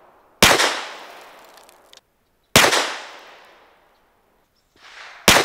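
Three 9mm pistol shots from a Glock 48 MOS, a little over two seconds apart, each sharp crack trailing off in a long echo. The pistol is being test-fired after being dropped and thrown, to check whether it still fires and holds zero.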